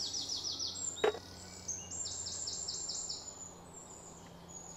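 Bird song: fast trills of repeated high sweeping notes, a short run at the start and a longer run about two seconds in, with a single sharp click about a second in.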